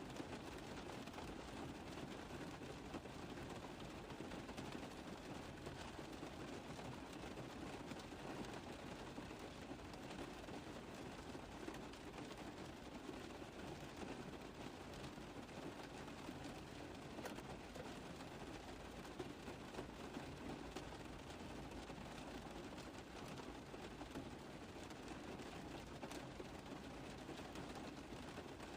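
Rain drumming steadily on a car roof: a dense, even patter of countless small drop taps, unchanging in strength.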